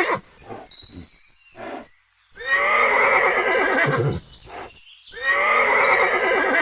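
Horse whinnying: the end of one neigh at the start, then two full, long, quavering whinnies a few seconds apart.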